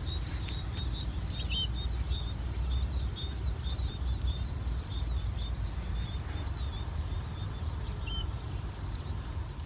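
Field insects shrilling in a steady high drone, with short high chirps repeating throughout, over a low wind rumble on the microphone.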